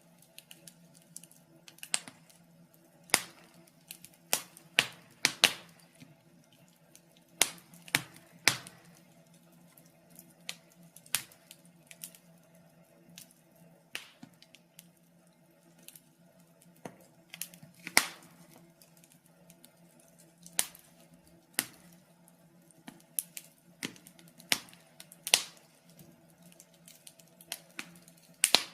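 Wood fire crackling in a fireplace: irregular sharp pops and snaps, some much louder than others, over a faint steady low hum.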